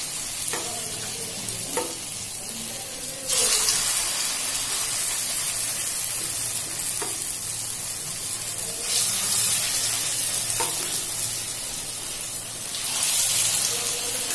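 Pakora batter deep-frying in hot oil in a metal wok: a steady sizzle that swells louder three times. A few light clinks of a spoon against the wok.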